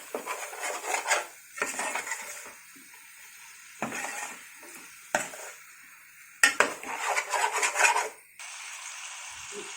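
A spoon stirring and scraping chicken pieces with chilli and coriander powder in a cooking pot, in several bursts. Near the end a steady frying sizzle starts abruptly.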